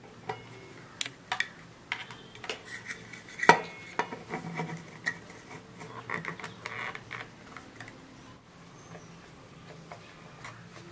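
Clicks and knocks of a speaker binding-post terminal plate, with its soldered wires, being handled and fitted into its cutout in an MDF speaker cabinet. The loudest knock comes about three and a half seconds in, lighter clatter follows, and it grows quieter after about eight seconds.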